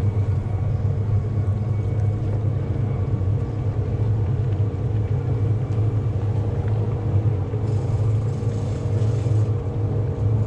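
Steady low hum of a bass boat's bow-mounted electric trolling motor holding the boat while fishing, with faint steady whining tones above it. A short hiss joins in about eight seconds in.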